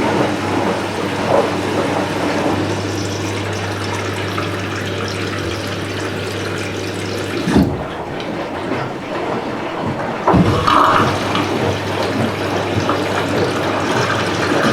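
Water rushing and sloshing inside a Candy Smart Inverter front-loading washing machine, with a steady low hum that cuts off about halfway through at a thump; a couple of knocks follow.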